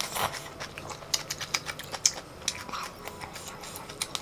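A close-miked slurp of spicy instant noodles, then chewing with many quick, irregular wet clicks and smacks of the mouth.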